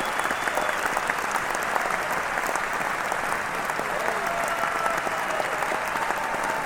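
A large crowd applauding steadily, dense continuous clapping with a few held cheers rising above it.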